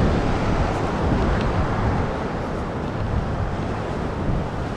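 Steady wind rushing over the microphone, with the wash of surf behind it.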